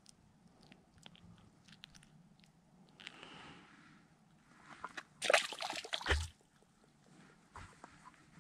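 A freshly unhooked bluegill set down on the frosty ice crust. It makes a loud burst of crunching and slapping about five seconds in that ends in a dull thump, with a few faint ticks from handling the fish and line before it.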